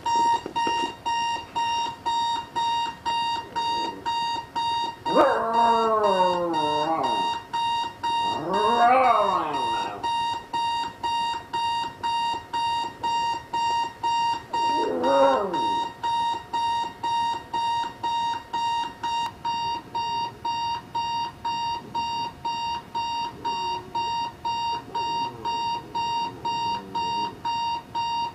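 Electronic alarm clock beeping steadily, about two beeps a second, while a dog howls at it three times. There is a long falling howl about five seconds in, a rising-then-falling howl just after, and a shorter howl around fifteen seconds.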